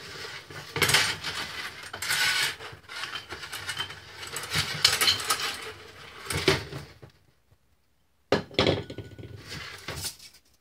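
Steel mainspring of a Cecilian phonograph motor being pulled out of its spring barrel by hand, the coils scraping and clinking against each other and the barrel in uneven bursts. It stops for about a second near the end, then rattles again.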